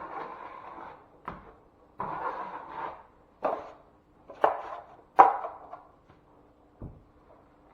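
Hand-tool work on drywall: a couple of rough scrapes about a second long and several sharp knocks, over a faint steady hum.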